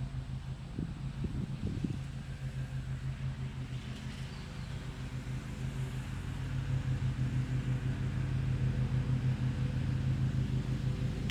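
An engine running steadily with an even, pulsing hum, growing louder about six seconds in.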